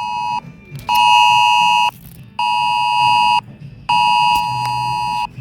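Peru's emergency alert tone from a phone: a dual-tone alarm beep sounding in pulses about a second long with half-second gaps, four times.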